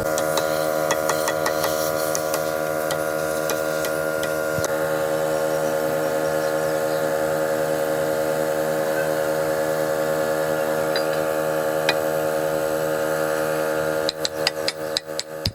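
A steady machine hum with scattered light clicks; near the end a fast run of sharp ticks begins.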